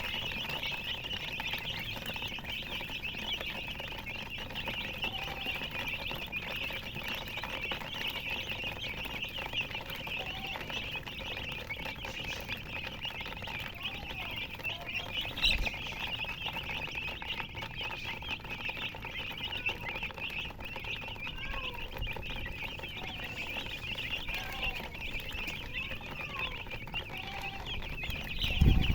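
A brood of baby chicks peeping continuously in a dense, high-pitched chorus, with a hen's lower clucks now and then. There is a thump about halfway through and a louder one near the end.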